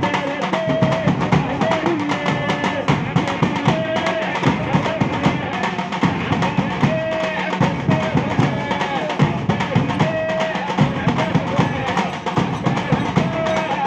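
A devotional bhajan drum ensemble playing a fast, dense rhythm on large steel-shelled barrel drums and a bass drum, with a melody of held notes over it.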